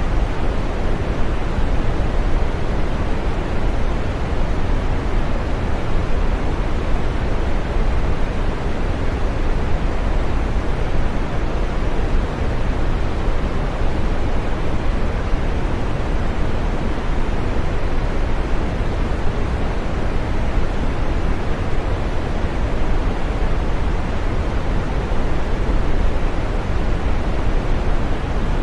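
Steady green noise: an even, unbroken rushing sound, fullest in the low and middle pitches and fading toward the top, with no change in level.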